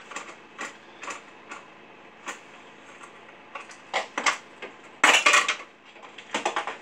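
Metal tools and parts clinking and clattering as they are handled on a workbench: a series of short knocks, with the loudest clatter about five seconds in. No engine is running.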